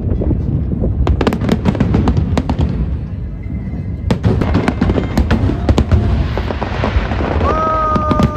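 Large aerial fireworks display: dense crackling and sharp bangs over a continuous low rumble of bursting shells, with heavier clusters of bangs about a second in and again around four to six seconds in. Near the end a steady pitched tone starts and holds under the fireworks.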